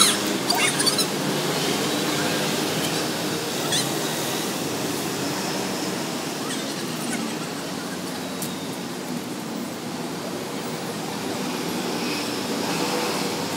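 Steady hiss of passing road traffic, with a few sharp clicks in the first second and another about four seconds in.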